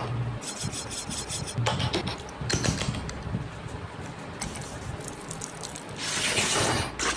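Food-preparation sounds while making tandoori chicken: several short scrapes and rubs, then a longer, louder scrape about six seconds in.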